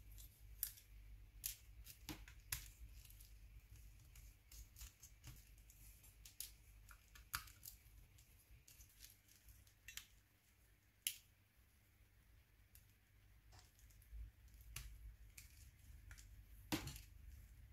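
Faint scattered clicks and ticks of small plastic and metal parts as a Nokia N93 is taken apart: a precision screwdriver in its back-case screws, then a plastic pry tool working its housing open. The sharpest click comes near the end.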